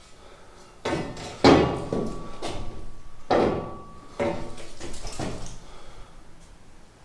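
A long slotted steel bar clattering and knocking against the wall and floor of a hollow truck box body as it is moved into place, with a few sharp clanks. The loudest clank comes about one and a half seconds in and leaves a thin metallic ring for a couple of seconds.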